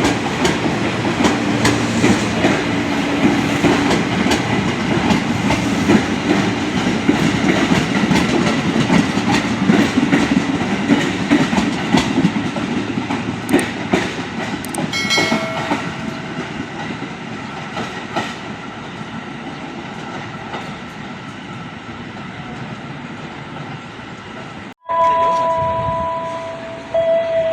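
A train passes on the station track, its wheels clicking over the rail joints under a steady rumble that fades gradually. After a sudden break near the end, a train horn sounds with steady tones.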